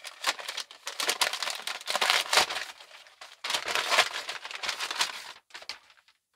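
Crinkling and tearing of a gift's wrapping as it is pulled open by hand, in dense, irregular rustles that stop near the end.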